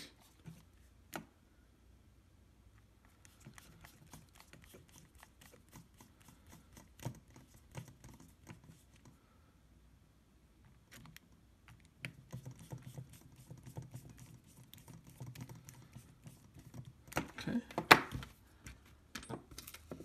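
Small screws being driven into a DJI Phantom 4 gimbal camera housing with a precision screwdriver: a run of light clicks and ticks of bit and metal screws. About two seconds before the end there is a louder cluster of clatter.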